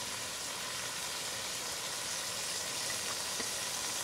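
Dried anchovies with onion, tomato and eggplant sizzling in oil in a frying pan: a steady hiss.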